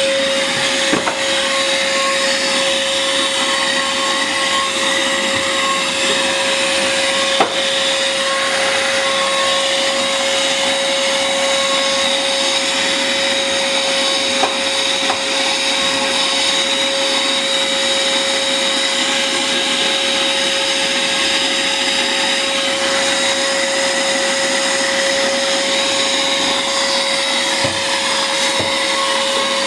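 Bolde Super Hoover vacuum cleaner running steadily, its motor giving a constant high whine, with a few light knocks.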